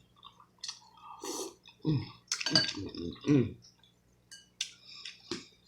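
Close-miked eating sounds of a person eating seafood: mouth and chewing noises with a few short voiced sounds in the middle, then several sharp clicks near the end.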